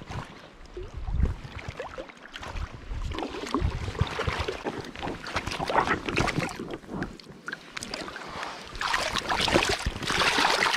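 Shallow river water splashing and sloshing around hands holding a grilse (young Atlantic salmon) and letting it go, the splashing loudest near the end. Wind rumbles on the microphone in the first couple of seconds.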